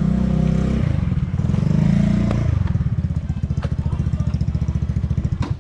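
A small engine running close by. Its note pulses rapidly and evenly in the second half, then cuts off suddenly at the end.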